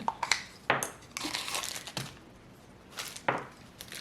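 Handling noises at a workbench: several sharp clicks and knocks from small rifle parts, with a short crinkling rustle like a parts bag being handled.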